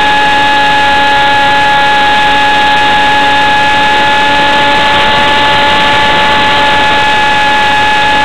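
RC model jet's motor running at steady throttle in flight, a constant high whine with rushing air over it, heard loud and close from a camera mounted on the plane.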